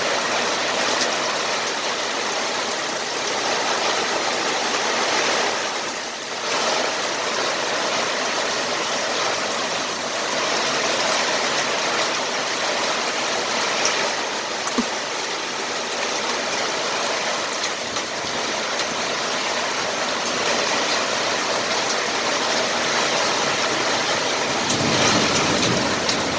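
Steady hiss of rain with scattered sharp pinging of small hailstones striking hard surfaces at the start of a hailstorm.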